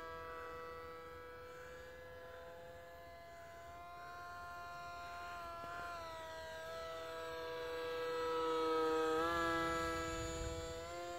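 Electric motor and propeller of a foam radio-controlled F6F Hellcat model plane in flight: a steady multi-tone whine whose pitch drifts slowly. It grows louder as the plane comes near, loudest around eight to nine seconds in, where the pitch steps up briefly.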